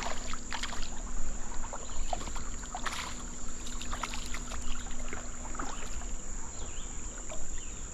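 Creek water splashing and sloshing in short irregular bursts, over a steady high-pitched insect drone.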